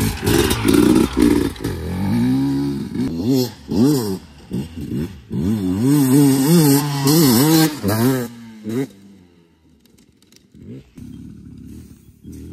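300 cc two-stroke enduro dirt bike riding off and accelerating along a sand track, its engine note rising and falling over and over as the throttle is worked. The engine fades out about nine seconds in, leaving quieter sounds near the end.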